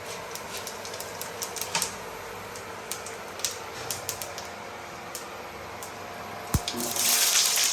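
Whole cumin seeds crackling in hot mustard oil in a frying pan, a scatter of irregular sharp pops. Near the end comes a thud, then a loud sizzle as chopped onion goes into the oil.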